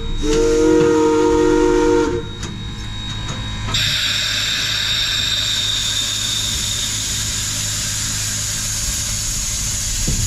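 Steam whistle on Denver & Rio Grande Western 2-8-2 locomotive no. 491 blowing one steady blast of about two seconds. After a short lull, a loud steady hiss of steam starts about four seconds in and keeps going.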